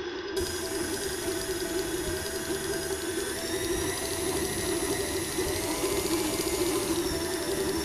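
KitchenAid stand mixer running steadily, its beater working pastry dough of flour, margarine and egg in the steel bowl, at the stage where the dough has turned crumbly and sandy.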